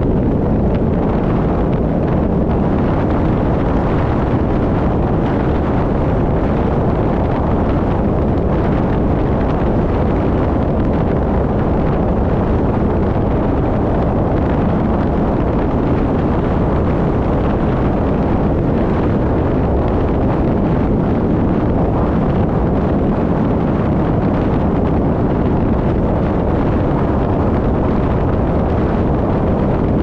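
Steady wind rumble on the microphone over road and engine noise from a vehicle driving at a constant pace.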